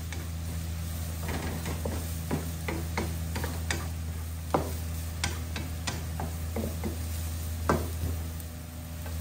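Wooden spatula stirring shredded cabbage and carrot in a wok, with irregular taps and scrapes against the pan over a light sizzle of frying, and a louder knock about three-quarters of the way through. A steady low hum runs underneath.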